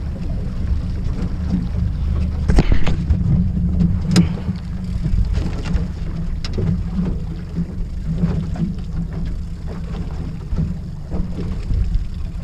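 Outboard motor running steadily at slow trolling speed, with water washing against the aluminium hull and wind on the microphone. A few sharp knocks come between about two and four seconds in.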